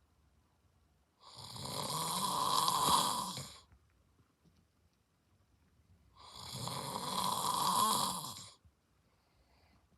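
A man snoring in his sleep: two long snores about five seconds apart, each growing louder before breaking off.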